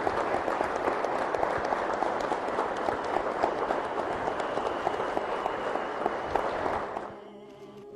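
A crowd applauding, a dense steady patter of many hands clapping that dies away about seven seconds in.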